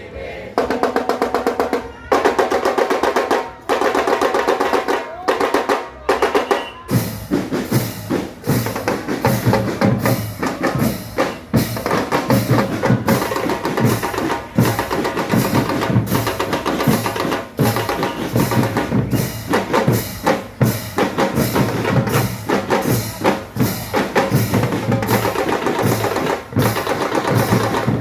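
A marching band playing: fast snare drum rolls with pitched instruments for the first several seconds, then from about seven seconds in a steady marching beat with bass drum under the melody.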